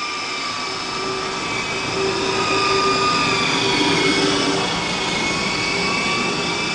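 Walkera HM 53-1 radio-controlled helicopter running: a steady whine of several held tones that waver slightly in pitch, getting a little louder about two seconds in.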